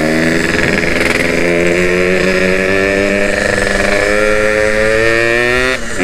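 Yamaha RX-King's two-stroke single-cylinder engine and exhaust running under way, a steady note whose pitch rises slowly, with a short break in the note near the end.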